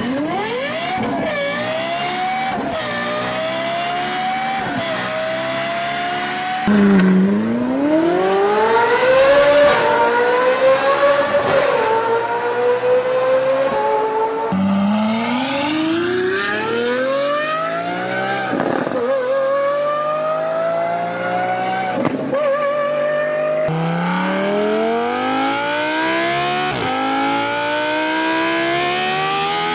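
High-revving racing car engines accelerating hard, pitch climbing steeply and dropping at each gear change. Four different engines in turn, each cut off abruptly for the next.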